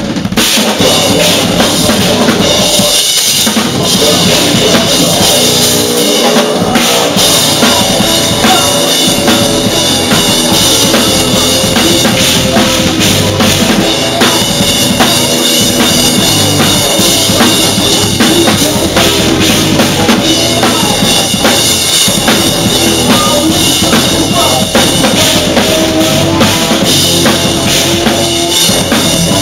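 A rock drum kit played hard with a full post-hardcore band: bass drum, snare and cymbals driving the song over guitar and bass.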